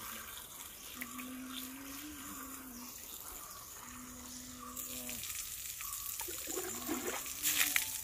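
Running water with a steady rushing hiss, growing louder with a few sharper splashes near the end.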